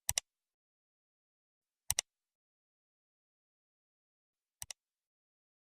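Three pairs of short, sharp clicks in otherwise dead silence: one pair at the start, one about two seconds in, and a softer pair near the end.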